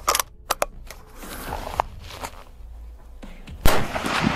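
A single rifle shot about three and a half seconds in, from a short-barrelled (50 cm) .30-06 rifle firing a handload of Vihtavuori N540 powder, with an echoing tail of about a second. A few light handling clicks come before it.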